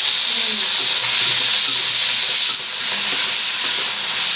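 Blanched pig liver with ginger and garlic sizzling steadily in hot oil as it is stir-fried.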